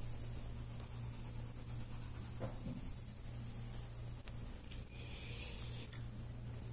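A pencil scratching and rubbing on paper as it shades over oil pastel, in short strokes, with a denser stretch of strokes about five seconds in. A steady low hum runs underneath.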